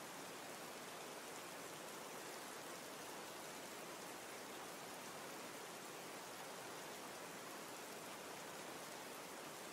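Faint, steady hiss with no other sound: the background noise of the recording.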